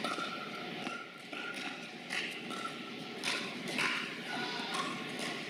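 Reverberant ambience of a large indoor tennis hall: a steady background hum with a few scattered, echoing knocks and faint distant voices.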